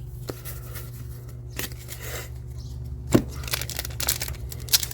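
Trading cards and their packaging being handled: scattered papery rustles and clicks, with one sharper tap about three seconds in and a denser run of rustling near the end, over a steady low hum.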